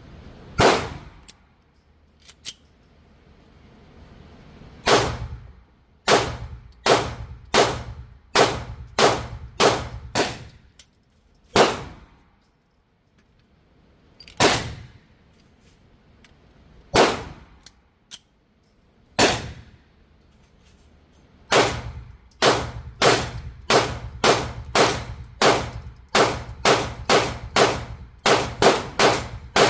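9mm pistol shots, a PSA Dagger compact being test-fired: single shots a few seconds apart at first, then a fast even string of about two shots a second near the end, each shot with a short ringing tail.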